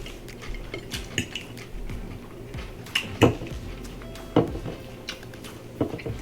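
Cutlery and dishes clattering during a meal: a handful of separate sharp knocks and clinks, the loudest about halfway through and another a second later.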